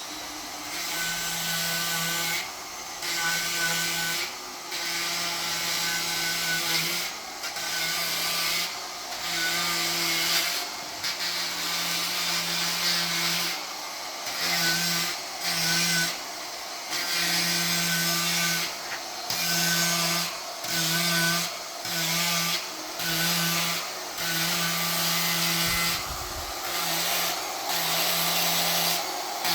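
Power carving disc on a handheld grinder shaping wood, biting in over and over in passes of a second or two, with the motor's steady tone between them.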